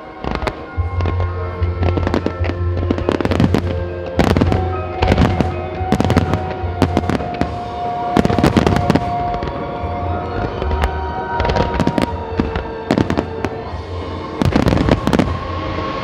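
Aerial firework shells bursting in a pyromusical display: many sharp bangs at irregular intervals, some in quick clusters, over a music soundtrack with a steady bass.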